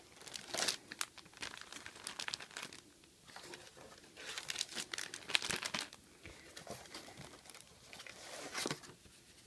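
Clear plastic packaging bags crinkling and rustling in irregular bursts as bagged doll clothes on plastic hangers are handled and shifted around in a cardboard box.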